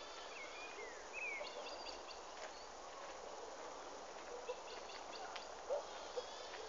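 Small birds chirping in short, scattered calls and quick pitch glides, with a few brief louder calls, over a steady outdoor background hiss.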